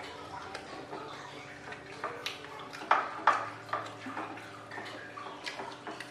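Spoons and plates clinking at a meal table: a scattering of light clicks, with two louder clinks about three seconds in, over a faint steady hum.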